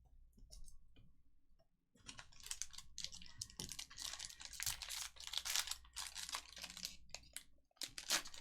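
Trading-card pack wrappers being torn open and crinkled: a dense run of crackling and ripping from about two seconds in until shortly before the end, after a few soft clicks.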